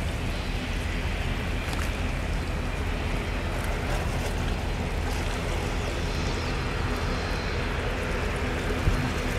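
Steady shoreline ambience of wind and water lapping against rocks: an even, unbroken noise with a low hum underneath.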